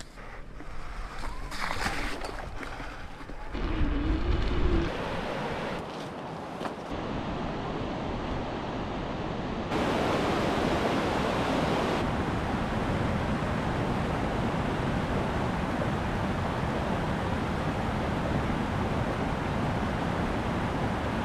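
A steady rushing noise that steps louder and brighter about ten seconds in, after a few short shifting sounds near the start, the loudest of them a brief low rumble about four seconds in.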